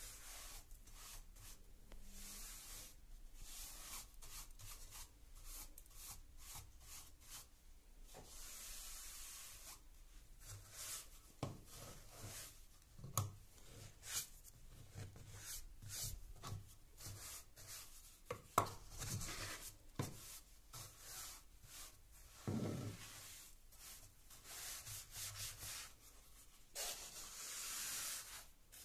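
Wide flat paint brush sweeping dust and grit along wood-grain stair treads and skirting board: a long run of short bristly strokes, with a few sharp knocks in between.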